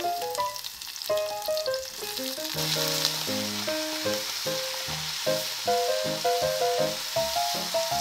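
Sliced Sapporo Ki onions sizzling as they fry in hot fat in a saucepan, just tipped in once the fat is bubbling. The sizzle thickens about two and a half seconds in.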